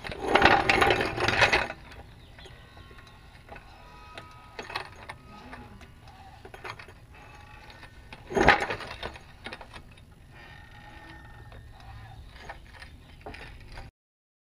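Floor jack rolled across a concrete garage floor into place under the axle, its wheels rattling loudly for the first couple of seconds, then light metal clicks and one sharp metal clunk about eight seconds in.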